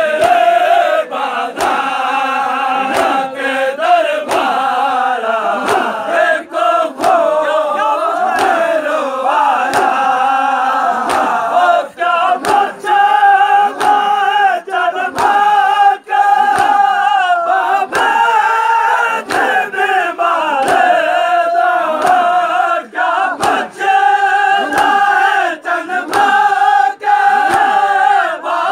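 A large group of men chanting a noha, a Shia lament, in unison. A steady beat of open-hand slaps on their chests (matam) keeps time, about once a second.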